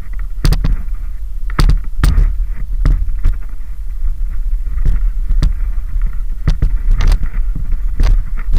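Steady low rumble on a body-mounted action camera's microphone, with irregular sharp knocks and rattles from the mountain bike and the rider's movement on gravel.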